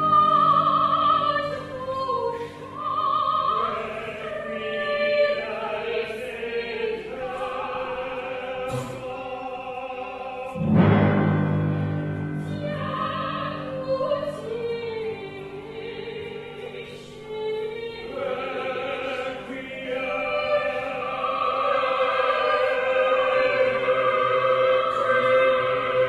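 A woman singing a slow operatic line in a classical style over a sparse instrumental accompaniment, heard live in a theatre. A deep sustained low accompaniment swells in about eleven seconds in.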